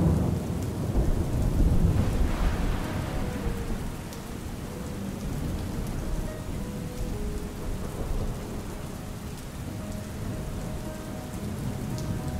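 Steady rain falling, with a low roll of thunder in the first few seconds that fades away, leaving the rain alone.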